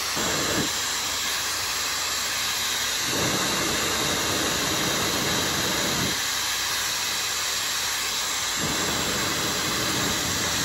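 Dyson Supersonic hair dryer running on its highest heat setting: a loud, steady rush of blown air, its lower part shifting every few seconds.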